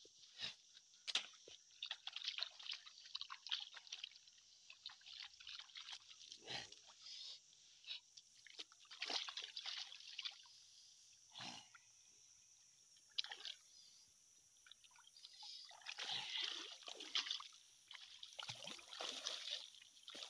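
Light splashing and sloshing of shallow river water, with scattered short knocks and scrapes.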